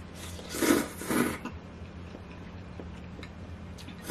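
A person slurps thin wheat noodles (janchi guksu) from a bowl: two short, loud slurps about half a second apart near the start, then a few faint clicks.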